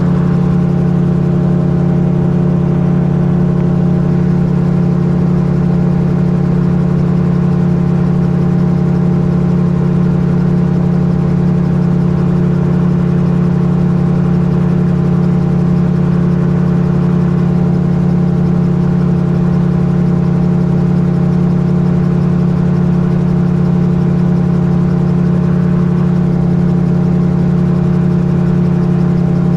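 Magni Gyro M16 gyrocopter in cruise flight: its engine and pusher propeller drone steadily at constant power.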